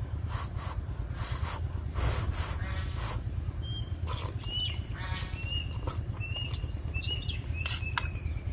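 A bird chirping repeatedly, short calls about once a second in the second half, over a steady low rumble and some clicking, smacking noises early on.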